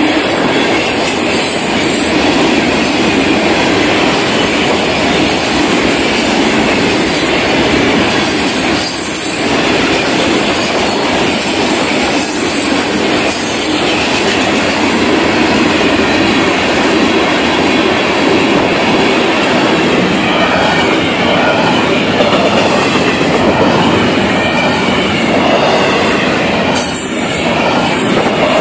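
Freight cars of a Florida East Coast Railway train rolling past close by: a loud, steady rumble and clatter of steel wheels on the rails. A faint, wavering squeal of wheels joins in during the second half.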